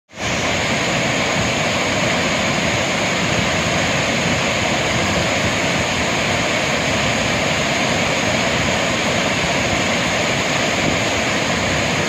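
Steady rush of water from a waterfall in full monsoon flow, pouring into a rocky pool and the fast stream below it.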